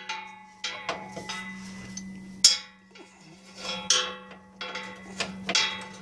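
Metal clinks and clicks from a ratchet and socket working the bolts of a pickup's rear bump stop, several sharp knocks with short metallic ringing, the loudest about two and a half seconds in.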